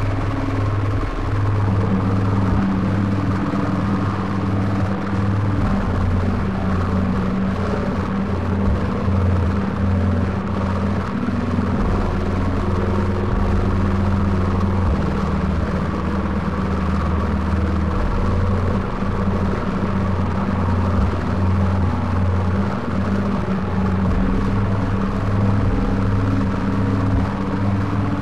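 Experimental noise music: a dense, steady low rumbling drone with held bass tones, and a second, higher bass tone coming in about a second in.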